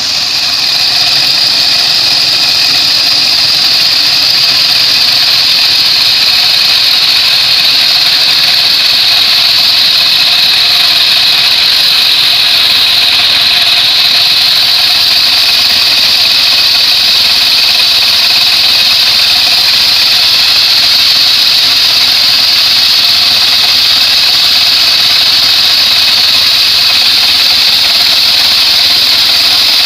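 Homemade bandsaw sawmill running and sawing acacia wood: a loud, steady high whine over a motor drone, unchanging throughout.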